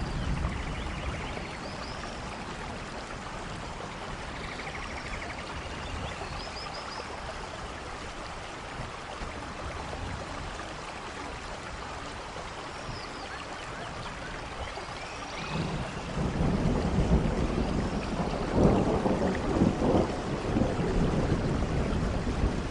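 Rainforest thunderstorm: steady rain with occasional short high calls. Thunder rumbles in about two-thirds of the way through and grows louder, with rolling peaks near the end.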